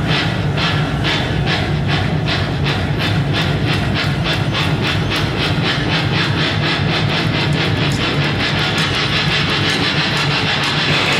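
Background music: a steady low drone under a pulsing beat that gradually quickens, building up.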